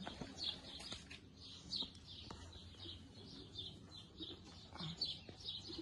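Small birds chirping continuously in the background: short, high, falling notes repeating a few times a second.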